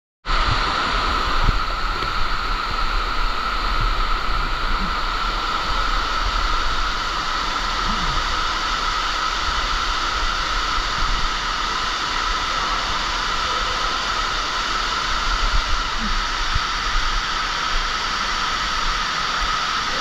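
Steady rushing hiss of an underground waterfall, water pouring and spraying down a mine shaft.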